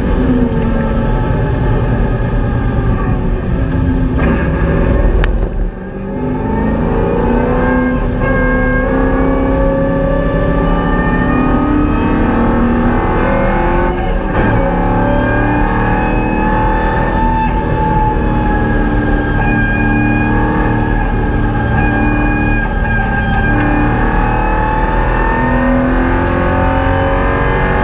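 A VY Commodore's LS1 V8 heard from inside the cabin, driven hard on track. The engine drops away briefly about five seconds in, then climbs in pitch as it accelerates, with another short dip near fourteen seconds, a gear change, before it holds at high revs.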